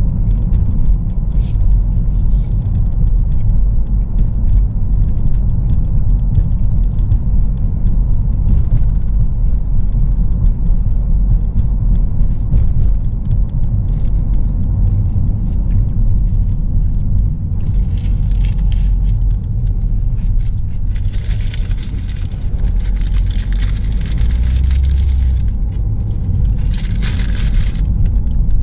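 Steady low road rumble of a Ford Focus driving, heard inside the cabin. Several stretches of louder hissing, each a second to a few seconds long, come in the last third.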